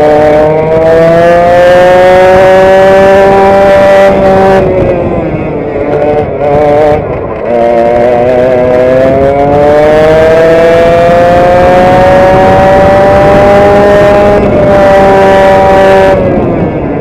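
Onboard sound of a vintage direct-drive racing kart's two-stroke engine at full throttle, its note climbing steadily along the straights. The pitch falls away twice, about five seconds in and again near the end, as the throttle is lifted for corners, then picks up again.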